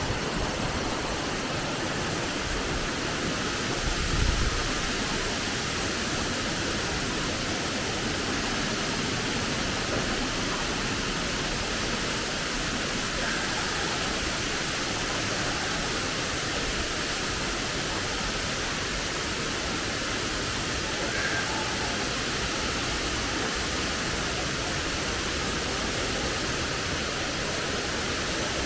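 Waterfall rushing steadily, an even roar of falling water with a brief low bump about four seconds in.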